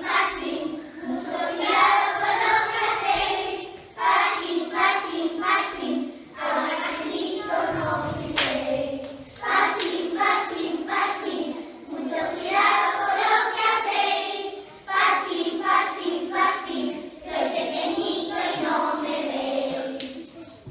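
A group of young children singing a song together in short phrases with brief pauses between them.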